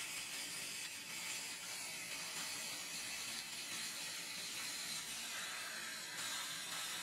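Fiber laser cutting machine slicing through 60 mm carbon steel plate: a steady hiss from the cut, with a fine rattling crackle.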